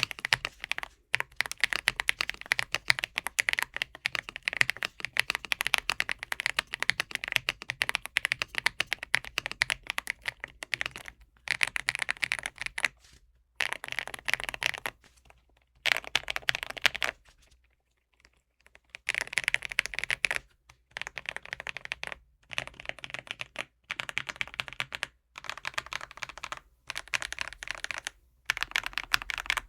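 Typing on a Redragon K745 Pro mechanical keyboard fitted with Cherry-profile keycaps and a cork layer over its silicone dampening. Fast runs of key presses come in bursts, broken by short pauses, the longest about two seconds just past halfway.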